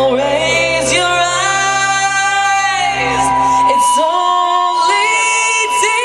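Live band with a woman singing lead over electric guitars and drums. A little under four seconds in, the low notes drop away, leaving the voice and higher parts.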